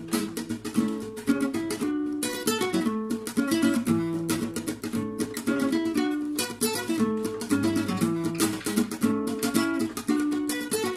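Acoustic guitar played solo, a quick run of picked melody notes over separate lower bass notes.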